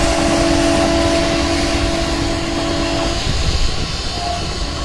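ALCO diesel locomotive's horn sounding one steady two-note blast that cuts off about three seconds in, over the continuous rumble of the passenger coaches running along the track.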